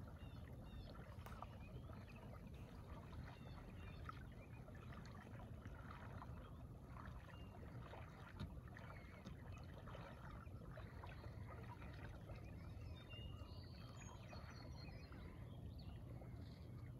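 Faint lakeside ambience on calm water: a steady low rumble with soft scattered splashes and drips, likely a kayak's paddle strokes. A few faint high chirps come in the later part.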